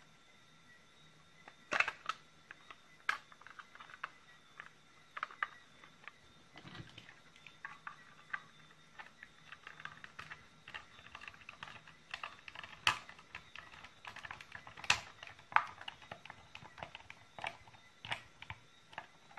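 Irregular plastic clicks and taps as the case halves of a Makita 18 V lithium-ion battery are pressed together and its latch is fitted and worked.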